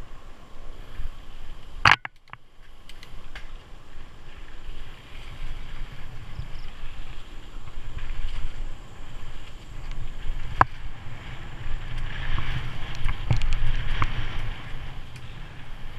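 Mountain bike riding down a dirt and leaf-litter trail: a rumble of wind on the helmet camera's microphone and tyres rolling, with rattles and clicks from the bike over the bumps. A sharp knock stands out about two seconds in, another near ten and a half seconds, and the rattling grows busier near the end.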